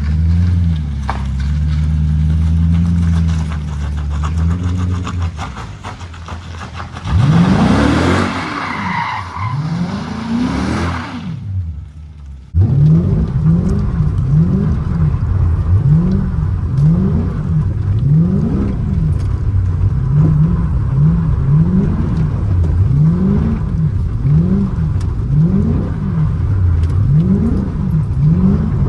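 Dodge Charger R/T's 5.7-litre HEMI V8, with its rear differential welded, revving hard. For a few seconds partway through, the tyres squeal and skid. After a sudden cut the engine revs up and drops back over and over, about once every second and a half.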